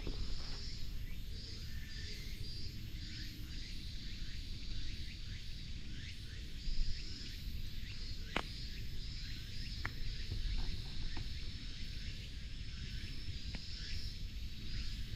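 Outdoor summer ambience: a steady, high, pulsing insect buzz, with a few short bird chirps, one a little past eight seconds in and another about two seconds later.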